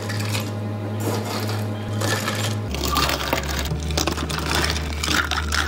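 Ice cubes clattering and rattling as they are tipped from a metal scoop into plastic cups, with the loudest bursts about halfway through and near the end. Background music plays underneath.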